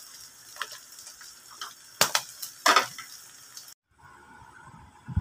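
A spatula scraping and knocking against the pan while stirring frying pork sisig, over a light sizzle, with the loudest knocks about two and three seconds in. The sound cuts off suddenly just under four seconds in, leaving a faint steady hum with one knock near the end.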